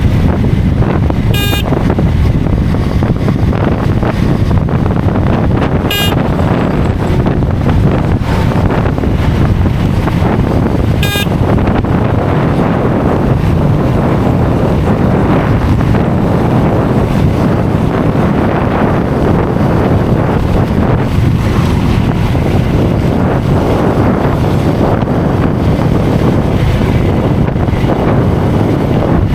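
Wind buffeting the microphone of a motorcycle at highway speed: a loud, steady rush over engine and road noise. Three short high beeps stand out in the first half, about five seconds apart.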